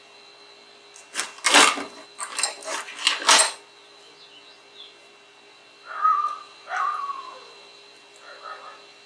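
Handling noise on a workbench: a couple of seconds of rough rustling and clattering as items are picked up and moved. It is followed by two short squeaky calls that fall in pitch, about six and seven seconds in, over a faint steady hum.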